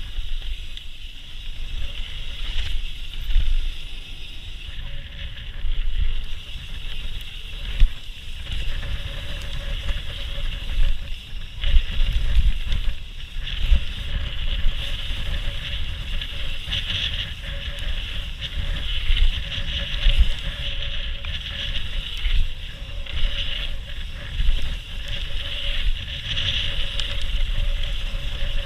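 Mountain bike running fast down a packed-dirt trail: tyre rumble with frequent sharp jolts over bumps, wind on the microphone and a steady high hiss.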